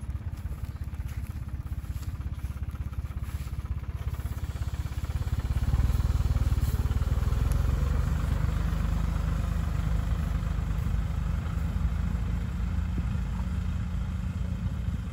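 Tractor engine running steadily as it carries a mounted sprayer spraying herbicide; the rumble grows louder about six seconds in, then slowly eases.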